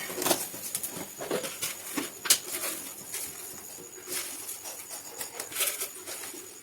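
Irregular light clicks and knocks of kitchen utensils being handled.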